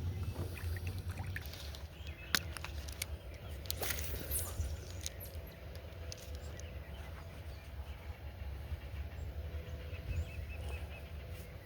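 Low steady rumble with a faint hum, broken by scattered clicks and knocks of fishing gear being handled in a small aluminium jon boat.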